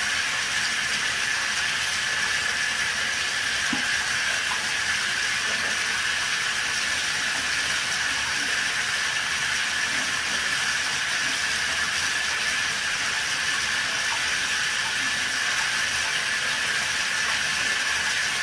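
2004 Pontiac Grand Prix HVAC blower motor running steadily after cleaning: a constant rush of air from the fan with a steady high whine.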